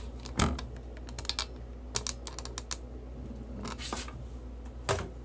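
Irregular light clicks and taps, in small clusters, with a sharper click about half a second in and another near the end, over a steady low hum.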